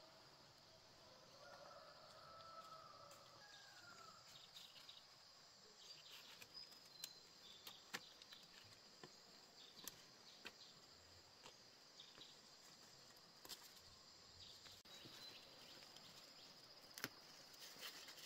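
Faint steady chirring of insects, with scattered light snaps and leaf rustles from the second third on as green beans are picked off the vine.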